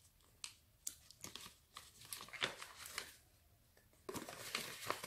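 Folded paper cards being handled and unfolded: a string of short rustles and crackles of card stock, busier near the end.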